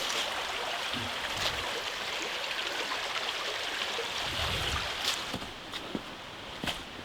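A woodland stream running, a steady rush of water that eases a little after about five seconds, with a few light clicks or knocks over it.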